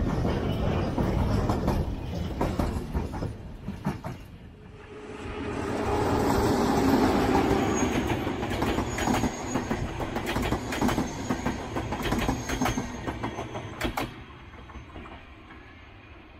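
The tail of a freight train of open wagons rolling past, then, after a short dip about four seconds in, a push-pull passenger train of a diesel locomotive and double-deck coaches passing close with rapid clicks over the rail joints and a thin wheel squeal. It fades away over the last couple of seconds.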